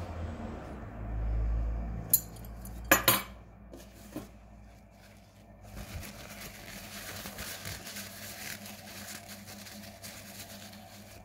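Metal parts of an e-cigarette atomizer clinking together a few times, sharply, about two to three seconds in. From about halfway through comes a steady papery rustle as a tissue is rubbed over the atomizer.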